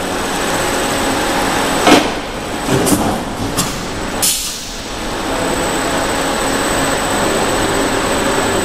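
Industrial continuous belt fryer line running, a steady loud mechanical noise with a faint high whine, broken by a few sharp knocks between about two and four seconds in.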